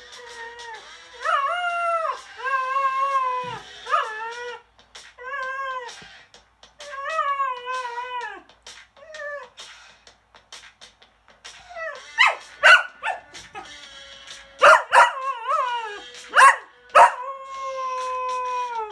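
Cocker spaniel howling along to rock music in long, wavering, pitched notes. In the second half it breaks into several short sharp yips, then ends on one long held howl.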